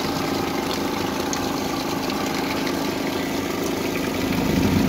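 A boat's engine idling with a steady hum, growing a little louder near the end.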